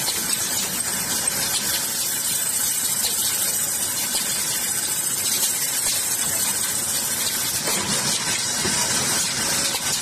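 Wooden paint brush handle sanding machine running: a spinning sanding wheel working the wooden handles gives a steady high hiss over a faint motor hum.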